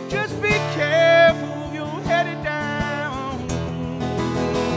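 Country song played live on a strummed acoustic guitar in a steady rhythm, with a melody line holding long notes over it.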